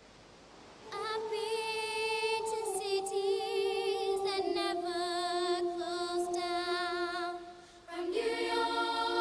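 Background music of choir-like voices holding long notes with vibrato. The notes enter about a second in and shift to lower notes a couple of times. The music dips briefly near the end before a new chord enters.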